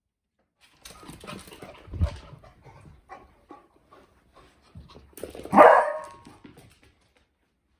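Dogs playing: scuffling and small noises, a low thump about two seconds in, and a short loud bark about five and a half seconds in.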